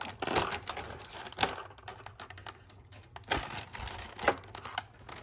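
Small hard-plastic action-figure accessories clicking and clattering as they are handled and spill out of their plastic packaging tray. The quick, irregular clicks come thickest in the first second and a half and again after about three seconds.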